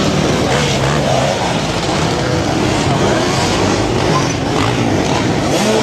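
Several off-road dirt bike engines revving unevenly at once, their pitches rising and falling and overlapping, as the bikes are worked over rocks.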